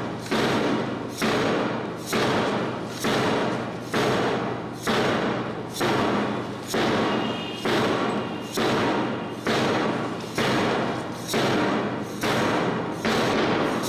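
A steady beat of thumps, a little under one a second, each trailing off in a long echo, keeping time for a group drill exercise.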